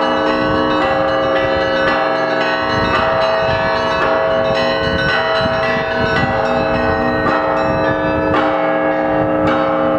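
Russian Orthodox bell ringing: many bells of different sizes struck together in a continuous, rhythmic peal. Small bells are struck rapidly over long, sustained ringing tones, and the deep strokes of the bigger bells come and go.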